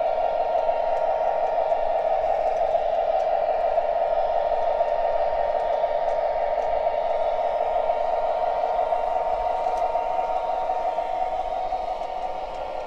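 O gauge model diesel train running on tubular three-rail track: a steady motor-and-wheel hum with a few faint ticks. It grows a little quieter near the end as the train moves away.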